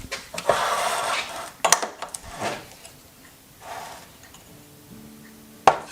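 Can opener being worked onto the rim of a large metal can: metallic scraping and clicking, with a sharp metal click near the end.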